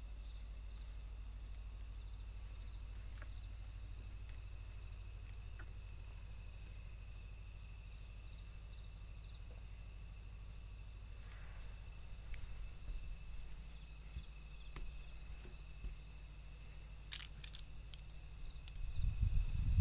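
Night insects: a steady high-pitched cricket trill, with a fainter chirp repeating about once a second above it. Near the end a louder low rumbling noise comes in.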